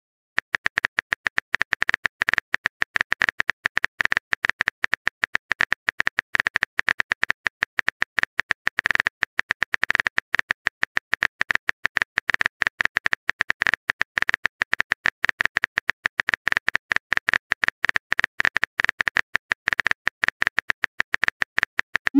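Phone keyboard typing clicks as a message is typed out: a fast, steady stream of short sharp taps, one per keystroke, starting about half a second in.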